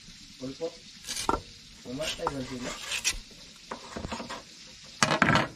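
Knife cutting green mango over a metal pot, with light clicks as the pieces drop in, against a steady sizzle of fish frying. A louder rustling burst comes near the end.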